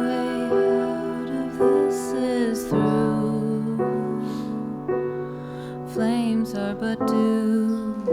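Slow, tender instrumental music: piano or keyboard chords over held notes, changing every second or so, with no words sung.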